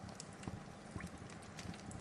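Wood fire burning, with a steady low rumble and irregular crackles and pops from the burning logs.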